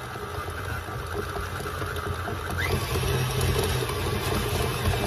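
KitchenAid stand mixer running steadily, whipping softened butter until fluffy. The motor hum grows louder about halfway through.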